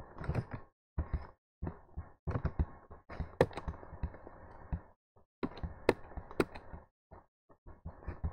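Clicks and knocks of a computer mouse and keyboard being worked, in short clusters with silent gaps between, the loudest sharp clicks about three and a half and six seconds in.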